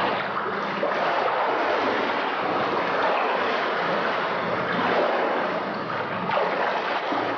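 Pool water splashing and sloshing as a steady wash of noise, picked up by a camera moving at and under the water's surface among swimmers, with bubbles churning around it.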